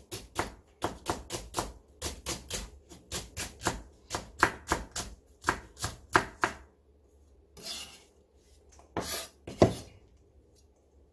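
Kitchen knife slicing the white part of a Korean green onion (daepa) on a wooden cutting board, a quick run of cuts at about four a second. After a pause, the knife scrapes the slices off the board, with a sharp knock near the end.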